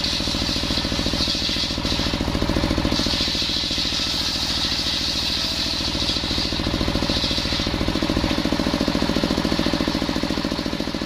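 Engine-driven circular sawmill (serkel) sawing coconut timber: the engine runs with a fast, even thumping, and the blade's high cutting noise rises in stretches as it passes through the wood, easing between cuts.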